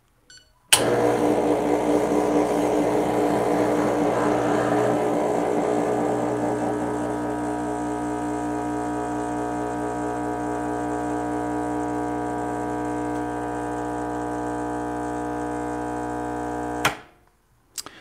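Rancilio Silvia espresso machine's vibratory pump buzzing steadily through a shot, switched on with a sharp click about a second in, a little quieter after the first few seconds, and cut off abruptly about a second before the end. The shot runs only about 16 seconds, fast against the 25 to 30 seconds aimed for.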